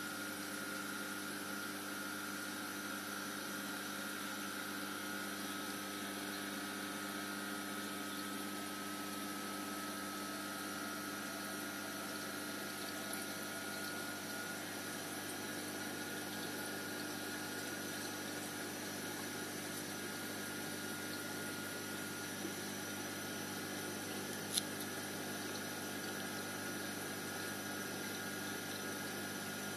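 Reef aquarium pumps humming steadily over running water, a few even tones above a constant hiss. A single sharp click comes once, late on.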